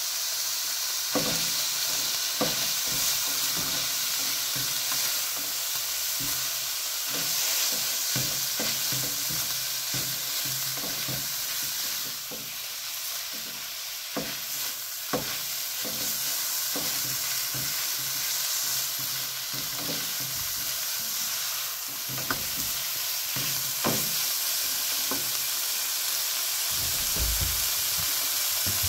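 Food sizzling as it fries in a pan, with a utensil stirring it and knocking against the pan at irregular moments.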